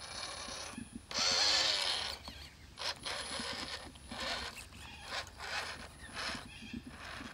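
Electric motor and gearbox of a WPL B36 Ural 4320 6x6 RC truck whining in short bursts as the throttle is worked on and off while it crawls over mud and grass, the longest and loudest burst about a second in.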